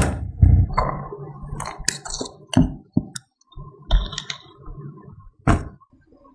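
A series of sharp kitchenware clicks and clinks, with a low thump about half a second in. Later, a wire whisk clinks against a glass bowl as it stirs icing.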